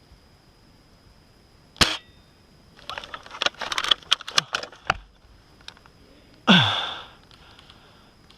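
Well L96 bolt-action spring airsoft sniper rifle: a sharp shot, then a quick run of metallic clicks and rattles as the bolt is worked, then a second, louder shot with a falling spring twang that dies away over about half a second.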